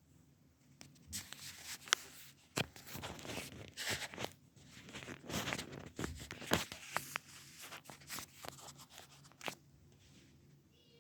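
Irregular rustling and crackling with many sharp clicks, stopping about a second and a half before the end.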